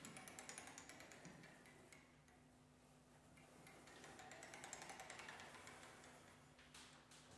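Faint experimental ensemble music: rapid soft clicking and tapping, swelling a little in the middle and fading away, over a steady low hum.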